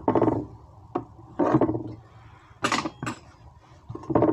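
Kitchen handling sounds: a few sharp knocks and clatters of metal bakeware, mixed with short pitched scraping sounds.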